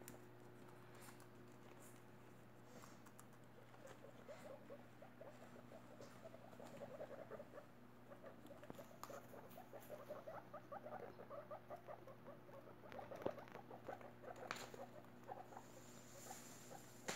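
Guinea pigs munching lettuce leaves: quick, faint crunchy chewing that picks up and grows busier a few seconds in, with a few sharp clicks. A steady low hum runs underneath.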